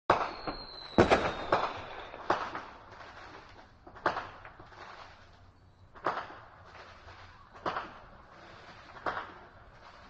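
Firecrackers going off: about ten sharp, irregularly spaced bangs, each fading quickly, the loudest bunched together about a second in. A thin high whistle slides slightly down over the first two seconds.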